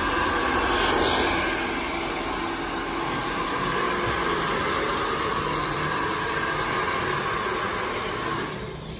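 Hand-held hair dryer running steadily, blowing air with a motor hum. It drops away near the end.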